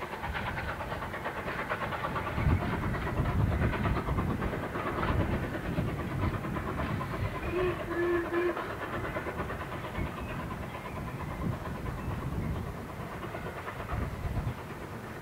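LMS Ivatt 2MT 2-6-2 tank engine No. 41312 working a short freight train away into the distance: chuffing exhaust beats and wheels clattering over the rail joints, growing fainter near the end. A brief low hoot sounds about halfway through.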